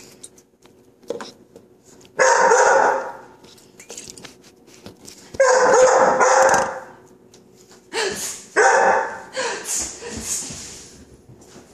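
A chocolate Labrador puppy barking in several bursts, mixed with about four short hisses of a non-stick cooking spray can, the sound that frightens the puppy.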